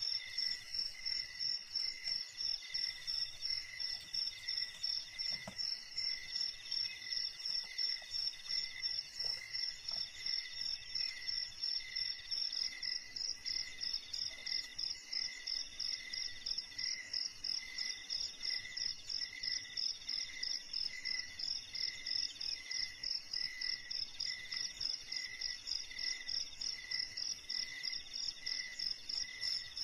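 Insects chirping: a high chirp pulsing fast and evenly, over a lower, slower chirp and a middle trill that comes and goes every couple of seconds.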